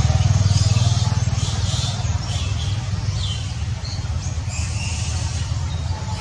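A low engine rumble, loudest at first and easing off after about two seconds, with brief high chirps above it.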